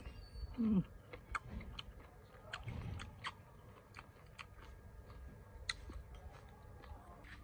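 Close-up mouth sounds of a person eating cooked snails: a short slurp falling in pitch just under a second in, then chewing with many small scattered clicks.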